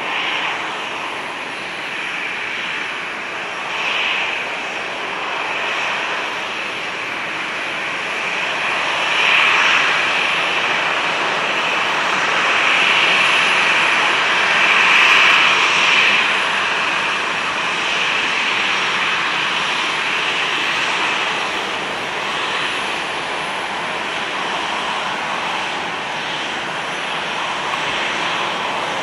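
Rolls-Royce Trent 700 turbofans of an Airbus A330-300 at taxi power: a steady jet rush and whine that grows louder about a third of the way in and eases off after the middle.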